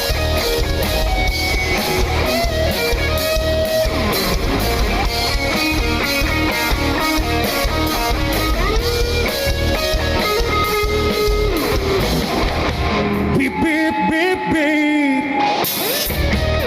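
Live band playing an instrumental passage with a steady beat. About 13 seconds in, the beat and low end drop out, leaving only melodic lines with bending notes, and the full band comes back in just before the end.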